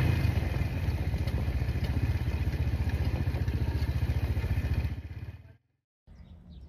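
Small motorcycle engine running steadily under way on a cobblestone street, with an even low pulsing beat. The sound fades out about five seconds in.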